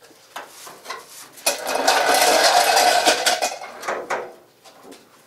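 Metal clattering and scraping as the prop rod is pulled free and the Fox-body Mustang's hood is lowered shut. The clatter starts about a second and a half in, lasts about two seconds, and ends in a few sharp clicks.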